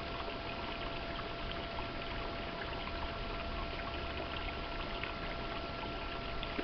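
Steady trickle of running water, with a faint steady high whine over it.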